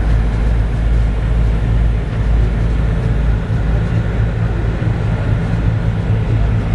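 River ferry's engine running steadily under way, a deep, even drone heard from aboard.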